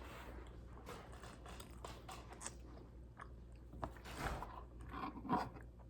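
A person chewing a mouthful of sweet pork, with scattered small wet mouth clicks and a couple of louder chews past the middle.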